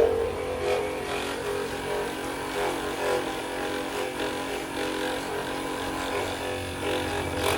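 Steady hum of a small electric motor running without a break.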